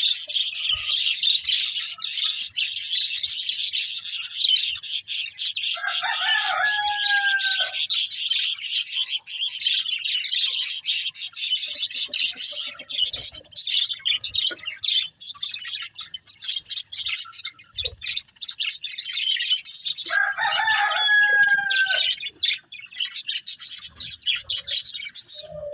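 Budgerigars chattering and warbling without pause in a dense, high twitter. Twice, about six seconds in and again near twenty seconds, a longer, lower drawn-out call of about two seconds sounds over the chatter, falling slightly at its end.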